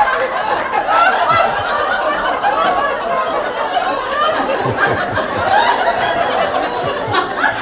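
Audience laughing at a cartoon punchline: a roomful of people chuckling and laughing together.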